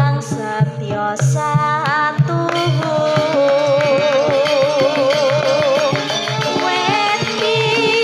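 A female sinden singing a Javanese langgam with campursari band accompaniment. Her held notes have a wide vibrato over a steady low drum beat.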